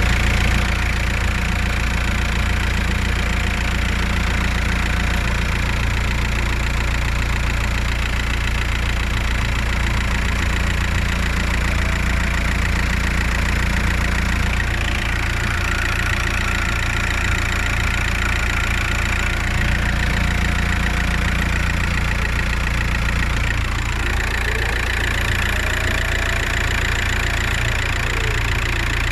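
Turbocharged engine idling steadily with a high whistle from the turbocharger, which shifts in pitch a few times.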